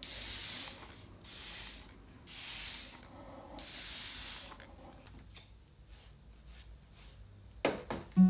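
Spray bottle misting a houseplant: four hissing sprays of about a second each, followed by faint light clicks and a knock near the end.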